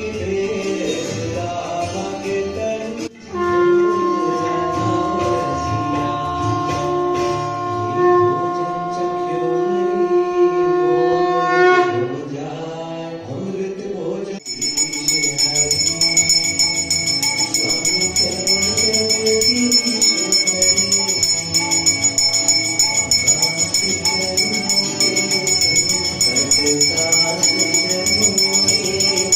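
Devotional music with singing and held notes. About halfway through, temple aarti bells start ringing continuously over the music.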